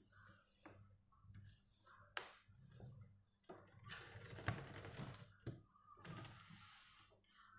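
Faint handling noise: several sharp clicks and taps with rustling between them, the loudest click about halfway through, as a smartphone is picked up and moved by hand.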